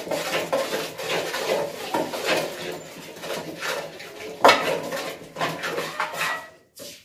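Metal spoon stirring a flour-and-water batter in a metal pot, clinking and scraping against the sides in quick irregular strokes, with a sharper clink about four and a half seconds in.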